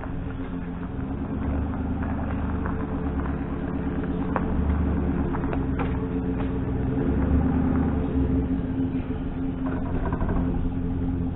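A motor vehicle's engine running steadily with a low rumble, with a few faint clicks or knocks over it.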